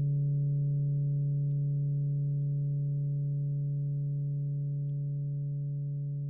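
A Shmoos Harp note ringing on: one low steady tone with several fainter overtones above it, slowly fading away.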